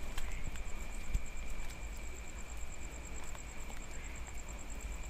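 Night ambience in light drizzle: a steady high-pitched insect drone with a faster, evenly pulsing insect trill above it, scattered light ticks of raindrops, and a low rumble underneath.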